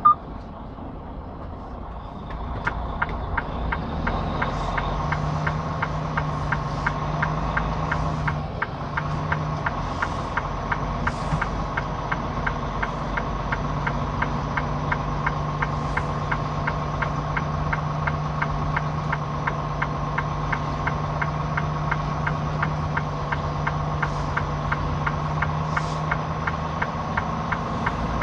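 Semi truck's diesel engine idling, heard from inside the cab, with a steady drone and a fast, even ticking. The sound grows louder about two seconds in.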